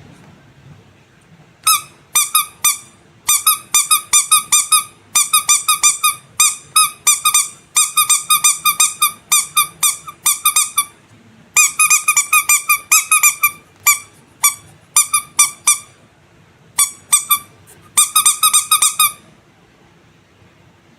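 Squeaky rubber animal toy squeezed again and again, giving quick runs of short, high squeaks, all at the same pitch. The runs start about two seconds in, pause briefly now and then, and stop a couple of seconds before the end.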